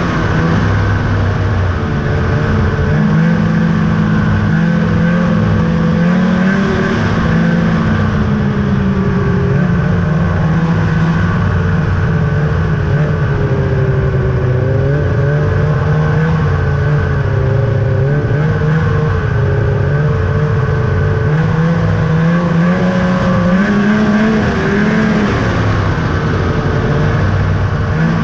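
A 2000 Ski-Doo Summit 800's two-stroke twin engine running under way on the trail, its revs rising and falling with the throttle, easing off in the middle and climbing again near the end.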